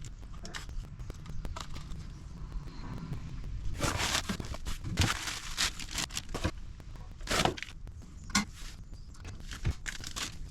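Irregular crinkling and rustling with small clicks and knocks, as parts are handled during a gas furnace control board replacement; loudest bursts about four, seven and eight seconds in.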